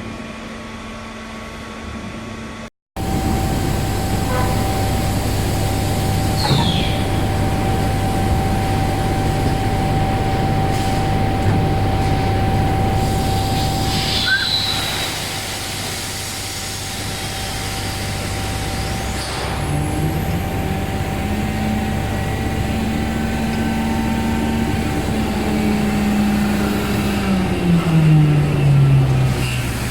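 Automatic casting-mold machine running: a steady mechanical hum with a held tone, short hisses of compressed air, and near the end a drive tone that rises, holds, then falls. A brief cut in the sound comes about three seconds in.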